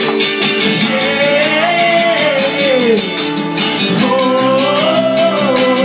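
A live pop-rock band playing, with guitars and keyboard holding chords under a steady beat. A melody line rises and falls over them in two long phrases.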